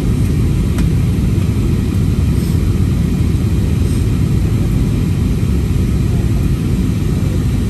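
Steady low cabin roar of an Airbus airliner in flight, heard from inside the cabin at a window seat, with a single faint click about a second in.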